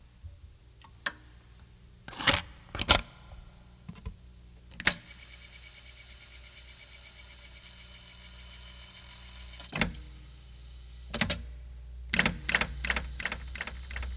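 Sound effects for an animated title: a few sharp hits, a steady hiss for about five seconds in the middle, then a quick run of clicking hits near the end, about four a second.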